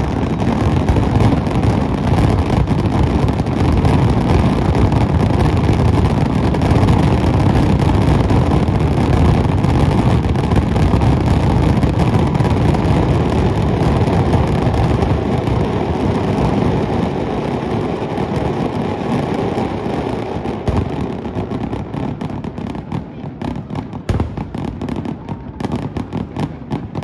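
Fireworks finale barrage: a continuous rumble of overlapping shell bursts that thins after about twenty seconds into separate sharp bangs near the end.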